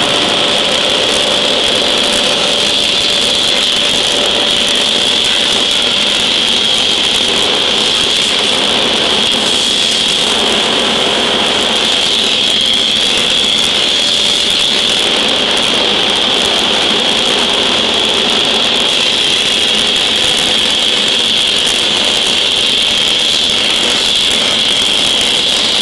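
Steady loud machinery noise: a continuous hiss with a high whine in it. No hammer blows are heard.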